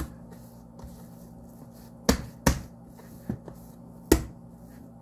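Bread dough being slapped down onto a bamboo cutting board to knock the air out of it: three loud, dull thumps, two close together about two seconds in and one near the end, with a couple of lighter knocks between.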